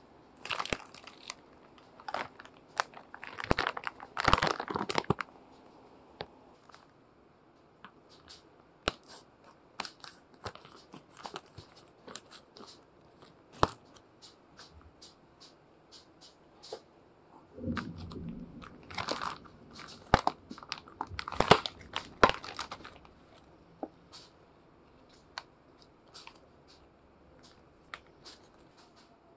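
Plastic bag of frozen chicken satay being handled and opened by hand, crinkling and tearing in irregular bursts with scattered crackles in between, and a low rubbing sound just past the middle as the plastic tray comes out.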